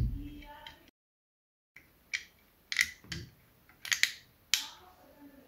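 Hard plastic clicks as a small 3D-printed clip is pressed and snapped onto the plastic carriage cover of an Artillery Sidewinder X1 3D printer's print head: a string of short, sharp clicks over about three seconds.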